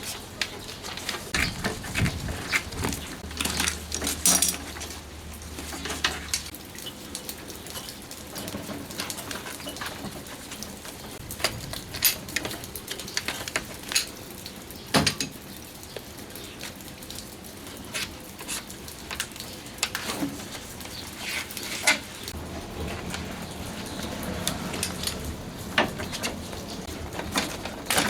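Irregular light clicks and knocks of hands working with tools and fittings, with a few sharper knocks about 12 and 15 seconds in.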